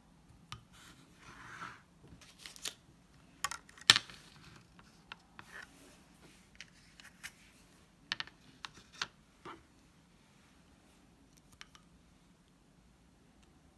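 Scattered light clicks and knocks of a spatula against a ceramic bowl of melted chocolate and of the bowl being handled and set on a table, the sharpest knock about four seconds in.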